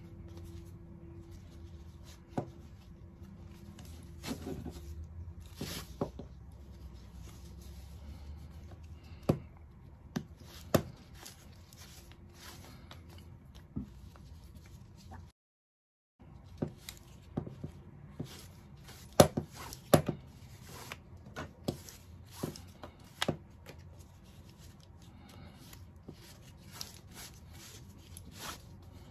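Scattered clicks and clacks of a metal ratchet strap buckle being handled and worked while jammed webbing is pulled out of its spool, with a brief dropout a little past halfway.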